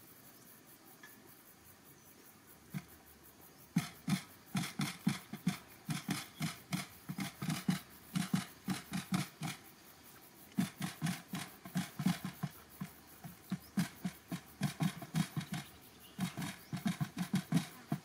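Quail pecking grain off cardboard: rapid sharp taps, about five a second, in bursts with short pauses, starting about four seconds in.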